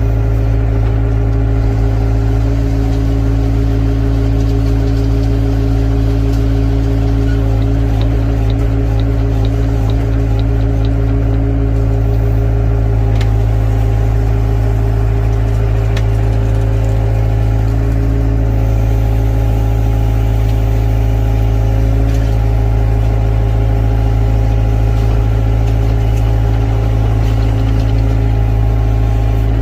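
Excavator's diesel engine running steadily at constant speed, a deep even drone with a few faint clicks.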